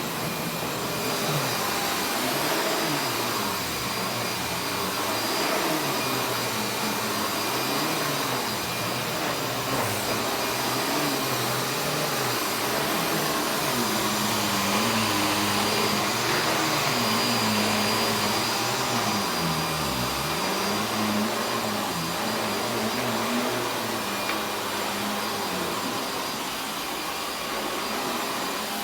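Panasonic MC6955 dirt sensor 11-amp upright vacuum cleaner running steadily: a continuous motor rush with a high whine held steady over it, and a lower hum that wavers up and down in pitch.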